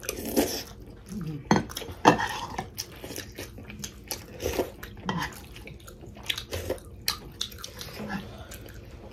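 A metal spoon clinking and scraping against a ceramic bowl of jhol momo, with chewing between the clinks. The sharpest clinks come in the first couple of seconds.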